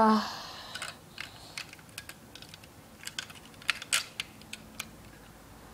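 Small, irregular plastic clicks and taps of Lego pieces being handled as a minifigure is fitted into the cockpit of a Lego starfighter.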